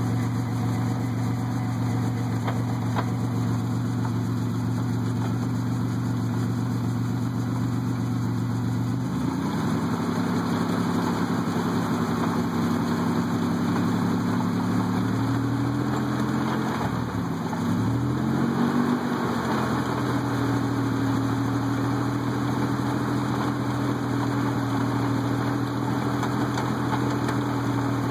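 A 4x4 truck's engine running at a steady idle, then picking up speed about a third of the way in. Its pitch dips sharply and climbs again around the middle, then settles at a higher steady speed.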